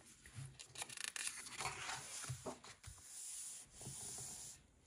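A page of a large paperback colouring book being turned, the paper rustling and crackling. Near the end there is a steadier rubbing as hands smooth the new open spread flat.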